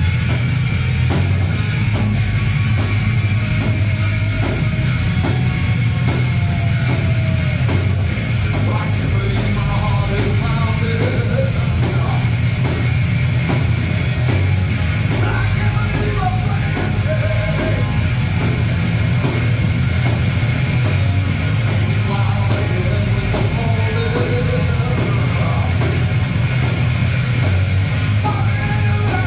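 A heavy rock band playing live at full volume: electric guitars and a drum kit keeping a steady beat. A man sings lead from about eight seconds in.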